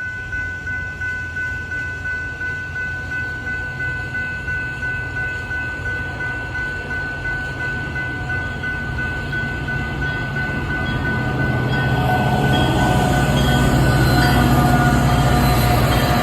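Railroad grade-crossing bell ringing in a steady rhythm, about two to three strikes a second, while an approaching train's rumble grows louder over the second half.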